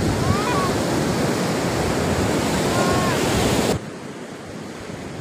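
Ocean surf washing onto a sandy beach, mixed with wind rumbling on the microphone. The sound drops abruptly to a much quieter level a little before the end.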